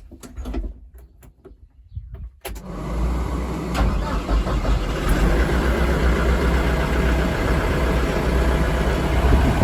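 A few light clicks. Then, about two and a half seconds in, the John Deere 4230's six-cylinder diesel starts and settles into a steady run.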